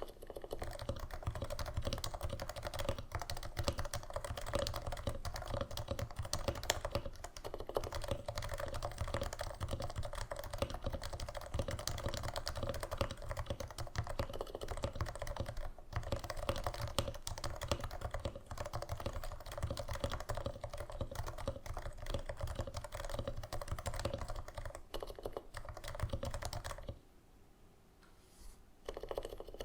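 Fast, continuous typing on a Norbauer Norbaforce Mk. III Topre keyboard, with stock 45 g Topre domes silenced by Deskeys #3 silencing rings and lubed sliders. The typing stops briefly near the end, then a few keystrokes follow.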